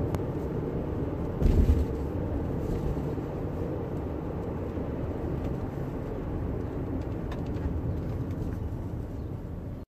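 Car driving, steady road and engine rumble heard from inside the cabin, with one low thump about a second and a half in.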